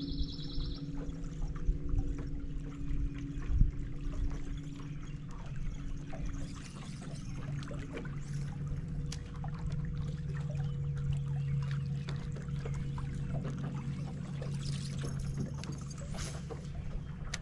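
Water trickling and lapping against a bass boat's hull, over a steady low hum from the bow trolling motor, with small clicks and ticks throughout.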